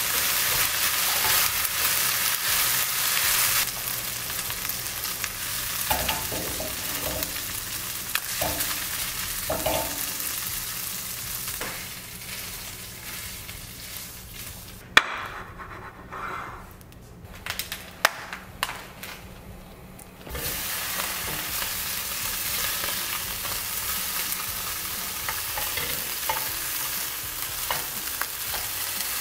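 Seasoned chicken bits sizzling in a frying pan on a gas stove, stirred and scraped with a wooden spatula. About halfway through, the sizzle drops away for several seconds and is replaced by sharp knocks and scrapes as the pan is emptied into a glass container. Then sizzling resumes as sausage pieces fry in the pan.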